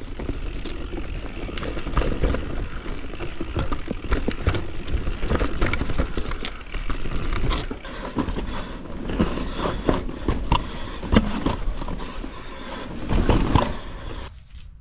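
Mountain bike riding down a steep, rocky trail: tyres on dirt and stone with frequent sharp knocks and rattles from the bike over the rough ground. The sound drops away sharply near the end.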